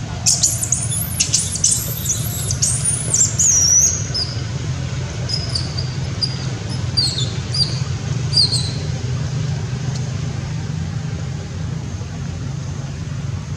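Young long-tailed macaque squealing: a run of loud, high-pitched calls in the first four seconds, then a few shorter falling squeaks, over a steady low rumble.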